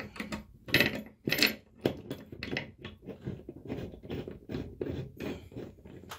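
Repeated short metallic clinks and scrapes of a bolt and spacer being refitted to a steel barn door rail with a hand tool, about two or three clinks a second.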